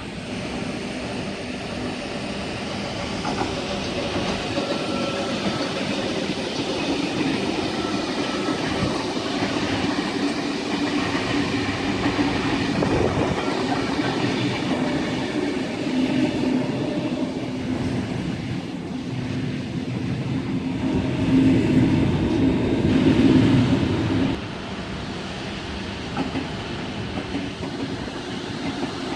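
A train running past on the rails, growing louder for a few seconds and then dropping off suddenly about three-quarters of the way through.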